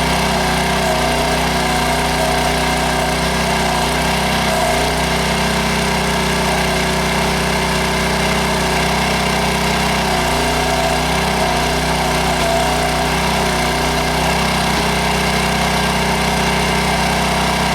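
Small engine of a towable backhoe running steadily, driving the hydraulics while digging out a tree stump; its note dips slightly a few times.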